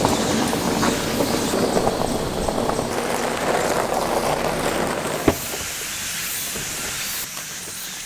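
SUV driving slowly on a gravel drive: a steady rush of tyre and road noise that eases off about five seconds in, just after a single sharp click.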